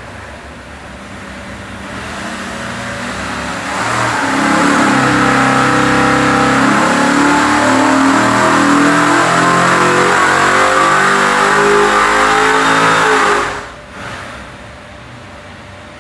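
408 Ford Cleveland V8 with a hydraulic roller cam on an engine dyno. It is brought up from a low speed over the first few seconds, then makes a wide-open-throttle pull from about four seconds in, rising steadily in pitch toward about 6,500 rpm. A little past thirteen seconds it cuts off suddenly and falls back to idle.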